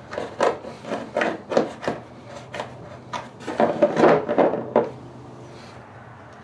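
Short scrapes and clicks of hands working a battery tender pigtail lead into place against a snowmobile battery and its bracket, with a busier cluster of knocks about three and a half seconds in as a screwdriver is picked up and brought to the terminal; then it goes quieter.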